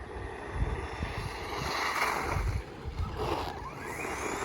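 RC trucks driving, their motors whining with a pitch that rises and falls, louder about two seconds in and again near the end. Wind buffets the microphone.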